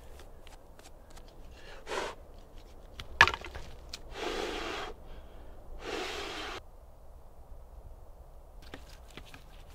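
A sharp crack of dry wood a little after three seconds in, then two long, heavy sighs from a man.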